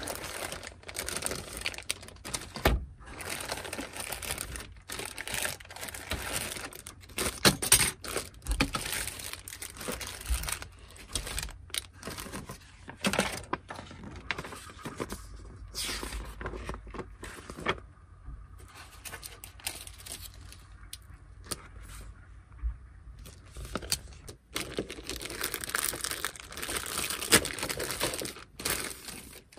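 Plastic bags holding plastic model-kit sprues crinkling and rustling as they are handled, along with the rustle of the paper instruction sheets being leafed through, and many small sharp clicks and knocks. There is a quieter stretch of a few seconds about two-thirds of the way through.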